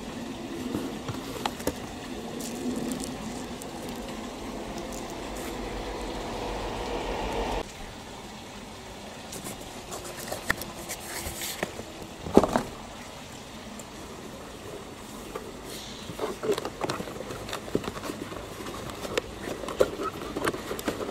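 A steady rushing noise with a low hum cuts off abruptly about seven and a half seconds in. Then cardboard box flaps rustle and scrape as the box is opened and a model steam traction engine is lifted out, with one sharp knock about twelve seconds in.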